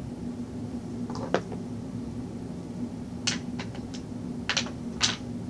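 Homemade lotion slime being squeezed and played with by hand, giving about six short sharp pops and clicks, most of them bunched in the second half, over a steady low hum.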